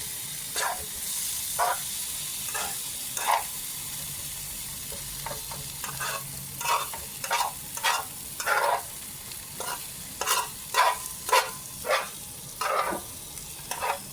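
Chicken fried rice with shrimp sizzling in a plug-in electric skillet while a utensil stirs it. There are short scraping strokes against the pan about once a second, coming faster and louder in the second half.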